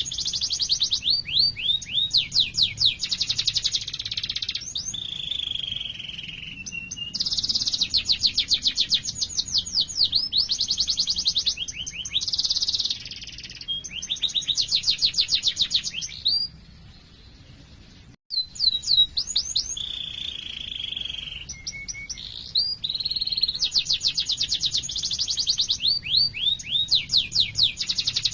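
A domestic canary singing long, fast rolling trills and runs of quick repeated chirps, switching between trill types every second or two. The song breaks off for about two seconds a little past the middle, then resumes.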